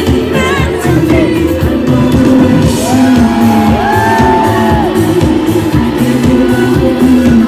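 Live dance-pop music with a steady pulsing beat, and a wordless voice holding long, gliding notes about three to five seconds in.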